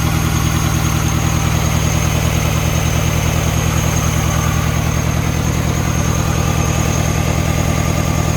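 Mini Cooper petrol engine idling roughly with a steady, regular pulse in its note: a misfire on one cylinder. A steady high-pitched whine runs over the engine sound.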